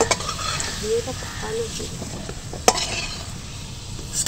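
Potatoes sizzling in hot mustard oil in a kadai, with a metal spatula scraping and clinking against the pan as they are lifted out: sharp clinks right at the start and again a little under three seconds in.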